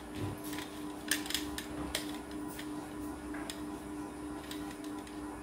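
Light clicks and ticks of a spin mop's steel-and-plastic handle sections being pushed together and twisted into place, most of them in the first two seconds, over a faint steady hum.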